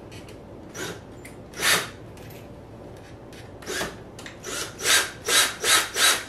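Keyless chuck of a Ryobi ONE+ cordless drill twisted by hand, opening to take a drill bit: short rasping ratchet strokes, a few spaced ones and then a quick run of about three a second near the end. The motor is not running.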